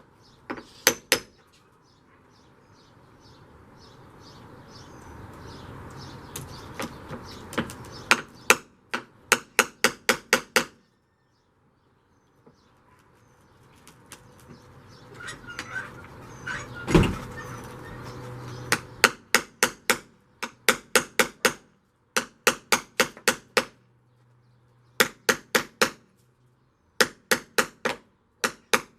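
Body hammer striking the Jeep's metal windshield frame to work out dents: quick runs of five to eight sharp metal strikes, several runs with short pauses between them, and one heavier blow near the middle. A steady noise swells up and fades twice behind the hammering.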